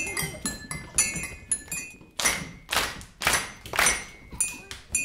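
Mugs and cups clinked in a rhythm, sharp ringing clinks about four a second. About two seconds in, these give way to swishing noisy strokes about two a second, with a few clinks again near the end.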